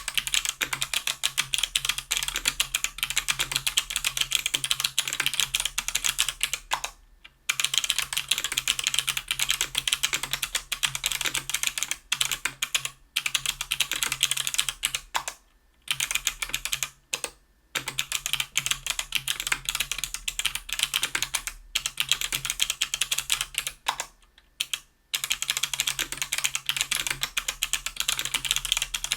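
Continuous fast typing on a 60% aluminium keyboard with stock BOX Crystal Navy clicky switches (90 g), an aluminium plate and GMK keycaps: dense key clicks broken by several brief pauses.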